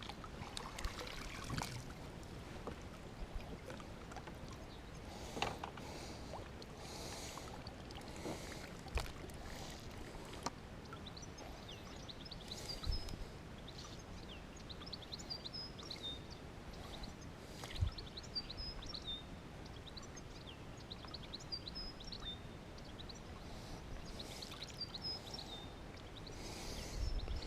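Quiet lakeside ambience with light water sounds and a few scattered knocks from handling fishing gear. From about the middle on, faint high chirps of small birds are heard.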